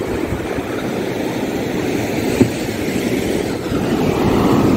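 Rough-sea surf rushing up the beach over wet sand, with heavy wind rumble on the microphone; it swells louder near the end as a wave breaks and washes in.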